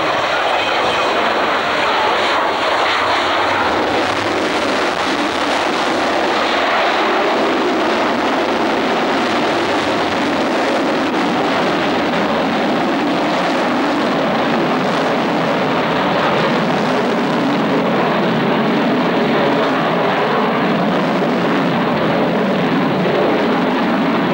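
Avro Vulcan XH558's four Olympus turbojet engines making a loud, steady roar as the delta-wing bomber passes overhead and banks away, with a high whine over the first few seconds.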